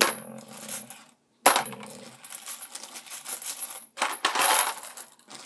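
New Starline brass 7.62x25mm Tokarev cases dropped into a clear plastic tub, clinking against the cases already in it: two sharp clinks in the first second and a half, then a run of jingling clatter as the cases rattle together in the tub.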